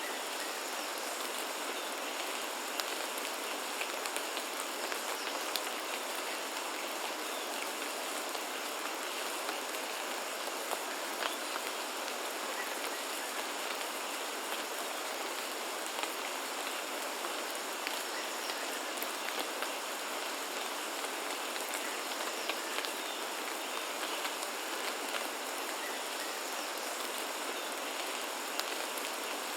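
Steady rainfall, a constant even hiss with scattered individual drops ticking through it.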